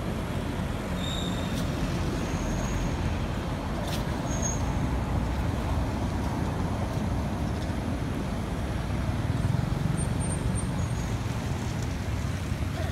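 Steady road traffic noise, a low rumble from cars passing on the road. A few faint, short high-pitched chirps sound over it.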